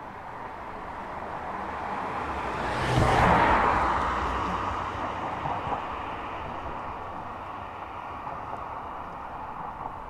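A vehicle passes close by: its noise swells, peaks about three seconds in, then fades slowly.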